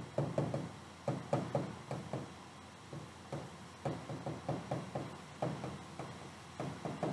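Stylus pen tapping and clicking against the glass of an interactive touchscreen display while capital letters are printed by hand: a string of short, irregular knocks in small clusters.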